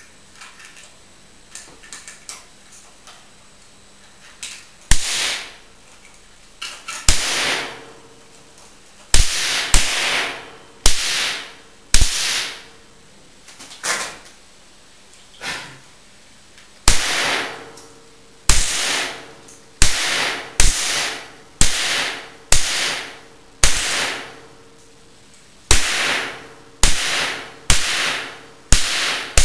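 A series of sharp cracks, each followed by a hissing decay that fades within about a second. They start faint and sparse, then come loud and irregular from about five seconds in, roughly one a second near the end.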